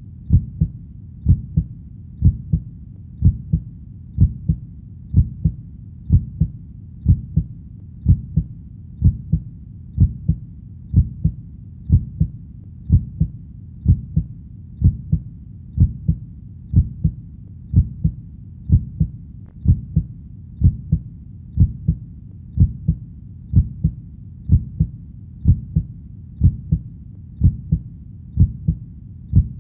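Heartbeat, a steady double thump (lub-dub) about once a second, deep and low-pitched, over a faint steady low rumble between beats.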